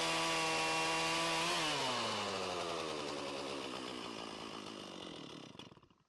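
Chainsaw at full throttle cutting through the end of a log. About a second and a half in the throttle is released and the engine speed winds down, fading out near the end.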